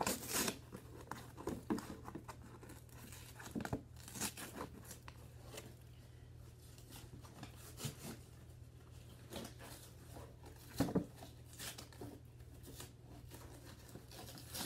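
Cardboard and plastic packaging of a Barbie doll box being ripped and crinkled by hand, in irregular short bursts with quiet gaps between them.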